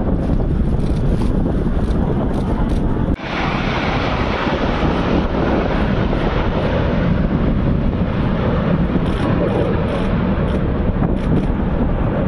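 Loud, steady wind noise buffeting the microphone over the rush of water from a boat at sea. About three seconds in the noise drops out briefly, then comes back brighter and hissier.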